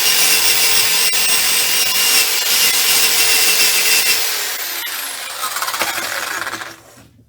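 Power tool running and scouring a small metal mower part clean of old paint and rust; about four seconds in it is switched off and its motor winds down with a falling pitch to a stop.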